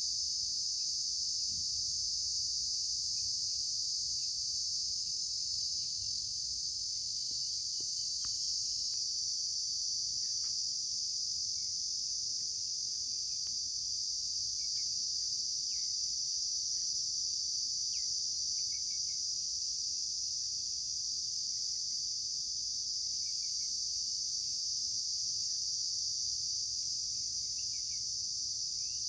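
A steady, high-pitched insect chorus that drones on without a break, with a few faint short chirps here and there.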